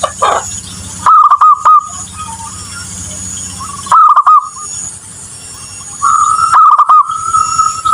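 Zebra dove (perkutut) cooing in three loud bursts of quick rolling coos, a few seconds apart. A steady high note comes in near the end.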